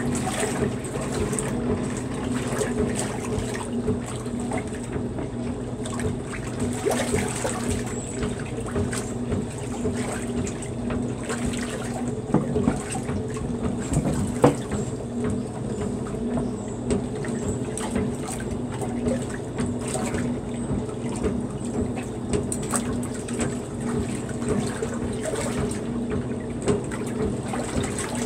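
Maytag wringer washer agitating a load: soapy water sloshing and churning in the tub over a steady mechanical hum. A couple of sharp knocks come near the middle.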